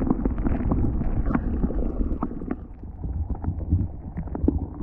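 Muffled underwater sound picked up through a camera housing: a low rumble of water surging among rocks, with many irregular small clicks and ticks.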